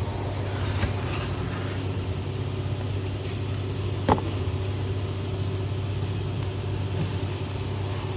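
Steady engine hum, like a vehicle idling, with a single sharp click about four seconds in.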